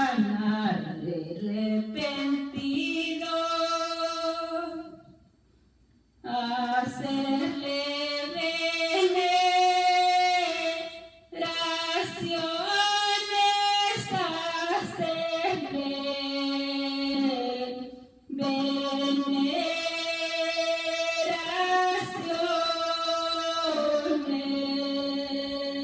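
A woman singing a Christian praise song solo and unaccompanied into a handheld microphone, in long held notes broken into phrases, with a short pause about five seconds in and brief breaths between later lines.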